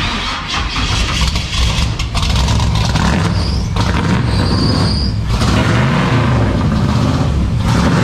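Pickup truck's engine starting cold and running, revved several times so its pitch rises and falls; a short high squeal sounds about three and a half seconds in and again near five seconds. The engine needs the throttle because it only idles on its own once warm.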